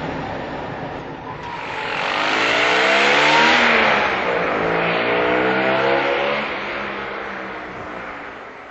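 The small air-cooled two-cylinder engine of a 1967 Fiat Abarth 695 esse-esse, accelerating as the car drives past. The note climbs and is loudest about three seconds in, then drops in pitch, climbs once more and fades away.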